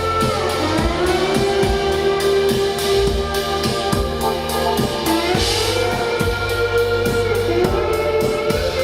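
A band playing with a steady drum beat and bass under held melodic lines that slide up and down in pitch.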